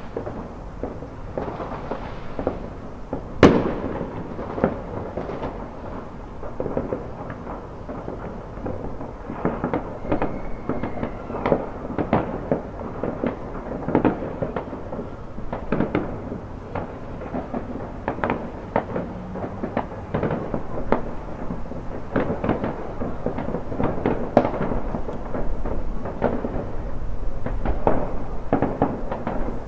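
Consumer fireworks set off by nearby houses: a continuous, dense run of overlapping bangs and crackles, with a sharp, louder bang about three and a half seconds in.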